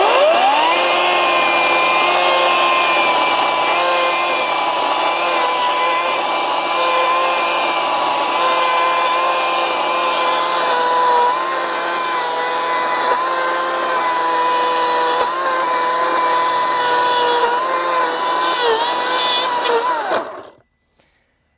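Ryobi 40V brushless battery chainsaw with a freshly fitted chain, cutting into a stump. It spins up to a steady high whine, its pitch dips briefly a few times, and it stops about twenty seconds in.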